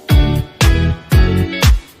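Background music: a funk-style track with a steady beat of deep kick drums, about two a second, under sustained chords.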